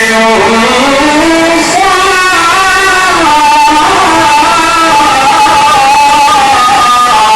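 A male reciter chanting Quranic recitation (tajweed) in one long, unbroken melismatic phrase. His voice rises in pitch about half a second in, then winds up and down through ornaments with no pause for breath.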